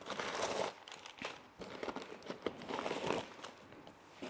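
Packing material rustling and crinkling as a hand pulls it out of a cardboard box, in irregular bursts with small clicks of the cardboard.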